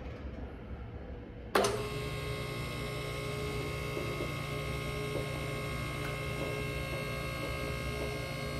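Electric hydraulic power unit of a MaxJax M6K car lift switching on about a second and a half in, with a sharp start, then running with a steady hum as it pumps to raise a car.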